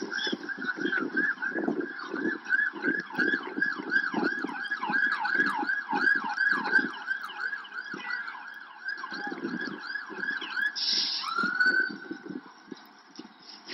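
Police car siren in a rapid rising-and-falling yelp, about three cycles a second. Near the end a short harsh blast cuts in and the siren changes to a slower rising tone. Irregular low noise comes and goes underneath.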